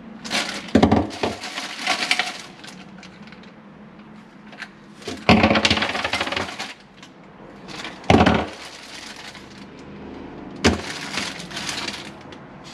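Clear plastic parts bag crinkling and rustling in several separate bursts as black ABS P-trap pieces are pulled out and handled, with sharp knocks and clinks of the plastic parts at the start of each burst.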